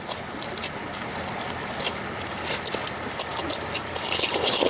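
A lemongrass stalk used as a pestle pounds and mashes chilies in a coconut-shell bowl, giving a run of quick wet taps and squishes. A louder scraping rustle comes about four seconds in.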